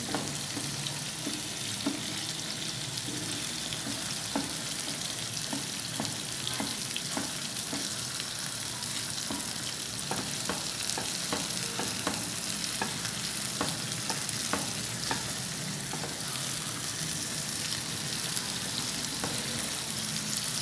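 Pieces of brain frying in a tomato-onion masala in a pan, with a steady sizzle, while a spatula chops and stirs them, tapping the pan at irregular moments.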